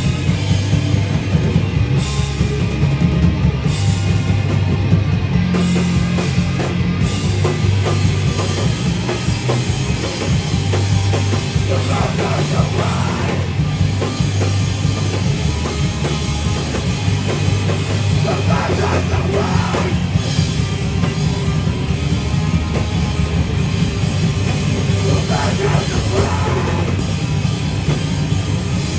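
Live heavy rock band playing loud: distorted guitars, bass and a pounding drum kit, with shouted vocals coming in now and then.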